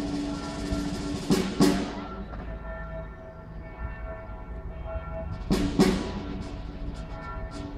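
Ceremonial band music: held chords under loud drum strikes that come in pairs, two about a second and a half in and two more near the six-second mark.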